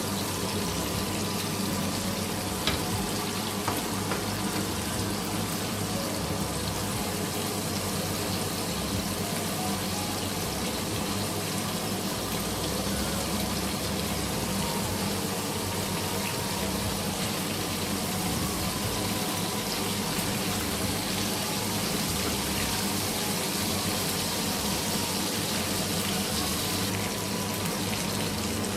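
Chicken pieces frying in hot oil: a steady, continuous sizzle.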